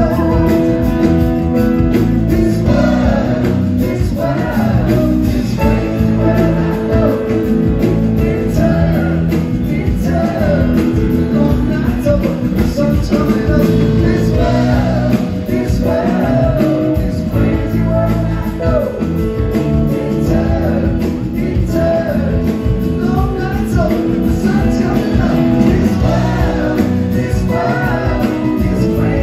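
Live amplified rock band playing a song: electric guitar, organ and keyboards over a steady band, with vocals.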